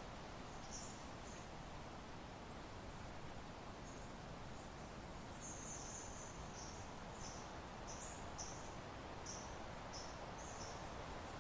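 Soft, steady wind noise with faint high, thin chirps over it. One comes about a second in, then a run of short chirps from about halfway to near the end.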